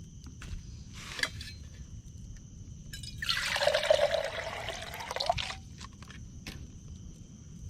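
Water poured into a camp-stove pan in one steady stream lasting about two seconds, starting about three seconds in.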